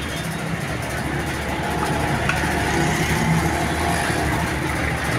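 Motor vehicle engines running steadily in street traffic, a continuous low hum.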